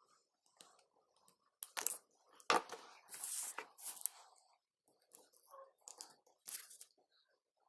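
Irregular clicks, knocks and short scraping of hand work on small parts, with the sharpest knock about two and a half seconds in.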